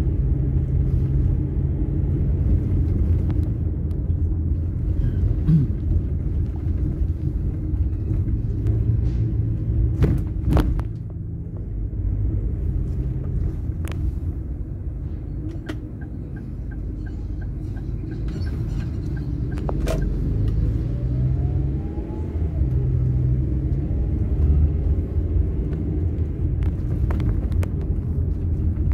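Road and engine rumble inside a car's cabin while driving slowly, steady and low, with a few sharp knocks, the loudest about ten seconds in, and a faint rising engine note a little after twenty seconds.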